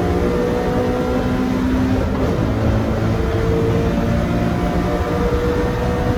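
Toyota 86 (ZN6) FA20 flat-four engine running at fairly steady revs, with no big rev rise or fall.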